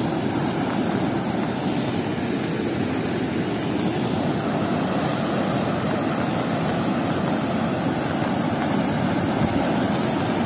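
Muddy floodwater rushing over a road and churning into rapids where it spills off the edge, a steady, unbroken rushing sound.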